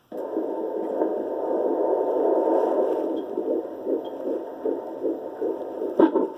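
Handheld fetal doppler's speaker cutting in with a hiss and picking up a fetal heartbeat as a fast, even, rhythmic pulse of about 150 beats a minute, a normal rate for a baby. A sharp click comes near the end.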